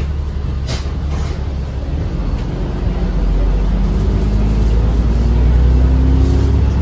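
Alexander Dennis Enviro500MMC double-decker bus heard from inside the lower deck as it pulls away and accelerates: a low engine drone that grows louder about three seconds in, with a faint rising whine. A short sharp click about a second in.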